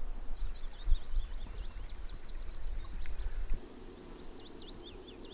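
A small bird singing a rapid string of high, quick chirping notes, with wind rumbling on the microphone until about three and a half seconds in.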